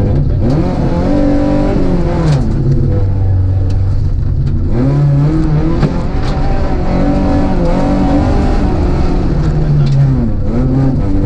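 Rally car engine heard from inside the cockpit, revving up and falling back again and again as the car is driven hard, with the pitch climbing and then dropping several times.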